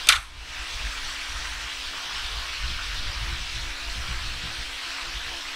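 A single short, sharp hiss right at the start, the loudest thing here, followed by a steady background hiss.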